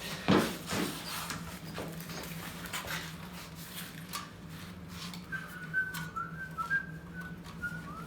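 A person whistling a short tune of brief, clear notes through the second half. A loud clunk near the start and a few knocks come earlier, over a steady low hum.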